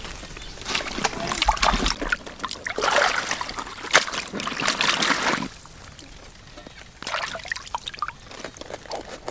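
Water splashing and sloshing as a napa cabbage is swished and rinsed by hand in shallow river water. Near the end come a few sharp crisp snaps as a knife cuts into the cabbage.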